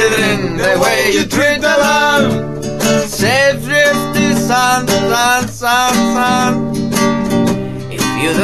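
A song played on strummed acoustic guitar, with a wavering melody line over the chords.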